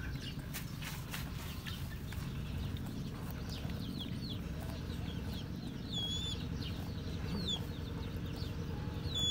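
Short high bird chirps, one every second or two from about a third of the way in, over a steady low rumble, with soft clicks in the first few seconds.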